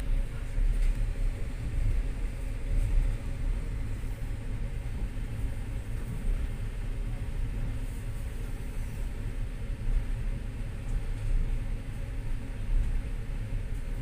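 Passenger train running at speed, heard from inside the carriage as a steady, deep running noise.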